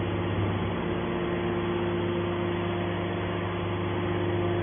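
Hydraulic scrap metal baler's power unit running with a steady hum, the electric motor and pump holding an even pitch.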